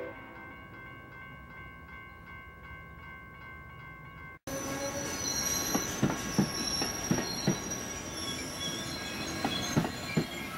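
Passenger train cars rolling slowly past on a curve: steel wheels squealing in high steady tones, with sharp clicks and knocks from the wheels over the track. Before a sudden cut about four seconds in, a quieter steady high ringing with faint ticks about three a second.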